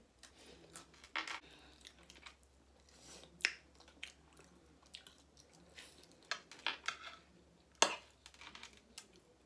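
Chewing and mouth sounds of people eating kebab, rice and salad, with scattered short clicks of forks and spoons against plates; one sharper click a little before the end is the loudest.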